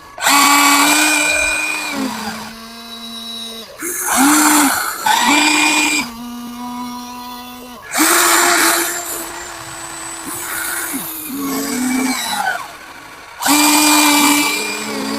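Electric motors of a Huina 1594 RC excavator whining as its functions are worked, in runs of one to three seconds that start and stop, the pitch stepping slightly lower on some runs.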